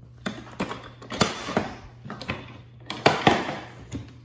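Short hard knocks and clicks, about eight or nine of them at uneven intervals, from hands handling the plastic Milwaukee Packout tool box as its latches are about to be undone.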